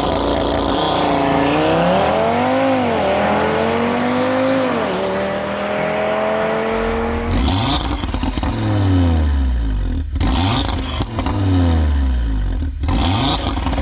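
Audi RS3 8V's five-cylinder engine revving: the pitch rises and falls over the first five seconds, then from about seven seconds in come three revs in a row that each fall away.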